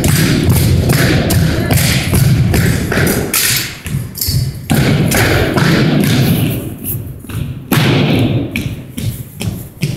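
A drill team's percussive exhibition drill: a rapid series of sharp thuds, stomps and slaps, several a second. The hits are denser and more continuous in the first two thirds and sparser toward the end.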